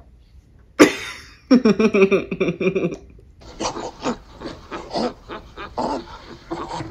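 Ape vocalizations from a film soundtrack: a sharp cry about a second in, then a pitched hooting call, then a run of short grunts.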